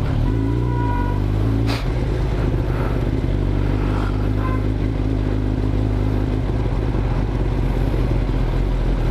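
Kawasaki Ninja ZX-10R inline-four engine running steadily while the bike is ridden, with a brief break and a sharp click a little under two seconds in.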